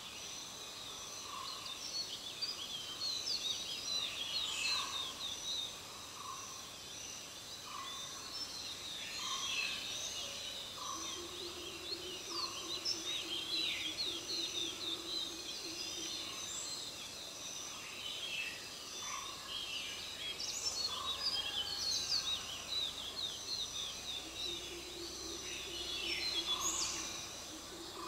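Forest ambience: many birds chirping and trilling, over a steady high insect drone, with one repeated lower call about once a second. A low steady hum comes in twice, in the middle and near the end.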